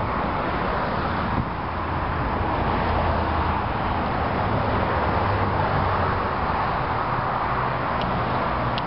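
Steady traffic noise, with a low hum underneath and a couple of faint ticks near the end.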